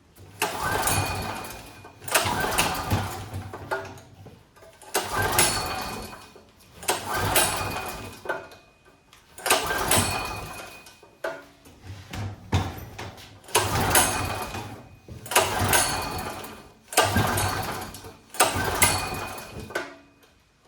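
Generac GP3250 generator's small engine being pull-started again and again, about ten pulls roughly two seconds apart, each a sharp burst of cranking that dies away without the engine catching.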